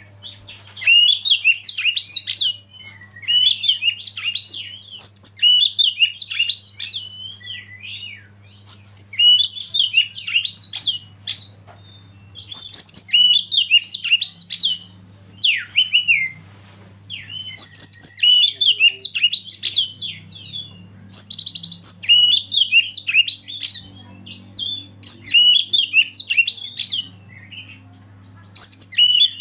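Oriental magpie-robin (kacer) singing: rapid bouts of varied whistled and chattering notes, a phrase every second or two with brief pauses between them. A faint, steady low hum runs underneath.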